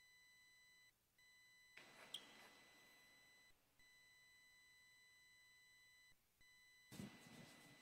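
Near silence: a faint, steady high electronic whine with overtones, breaking off briefly about every two and a half seconds. Two soft bursts of rustling and knocking come about two seconds in and again near the end.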